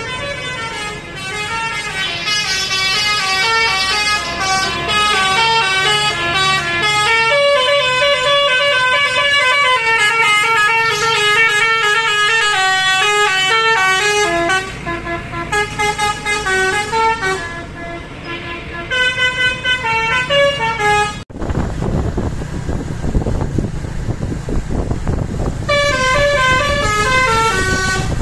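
A bus's 'telolet basuri' musical horn playing a melody of stepping horn notes. About two-thirds of the way in, it gives way suddenly to a few seconds of plain vehicle noise, then the melody starts again near the end.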